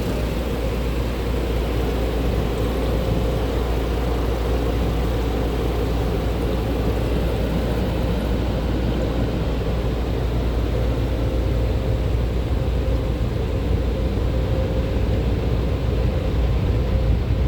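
Car-wash dryer blowers running steadily: a loud, even rush of air with a low rumble and a faint steady hum, heard from inside the car's cabin.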